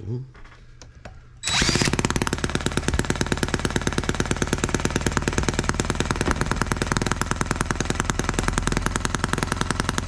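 Model H73 single-cylinder engine, converted to burn alcohol, started cold by spinning its flywheel with a cordless drill: after a brief drill whir about a second and a half in it catches and runs on its own with a fast, even popping beat, firing every stroke rather than hit-and-miss.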